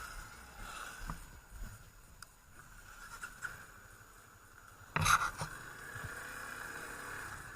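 Faint running noise of a motorcycle on the move, a steady hiss of wind and engine. A short burst of loud knocks and rustling comes about five seconds in.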